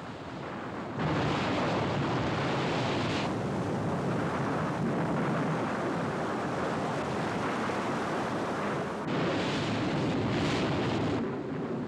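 Floodwater roaring through a dam that has been blown up: a steady, dense rush of water that comes in sharply about a second in.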